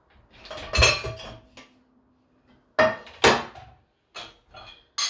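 Dishes and kitchenware knocking and clinking as they are handled and set down, in a few separate clatters with short ringing.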